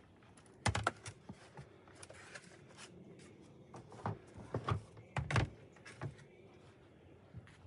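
Hands handling tools and plastic parts: scattered light clicks and knocks, loudest about a second in and again about five seconds in.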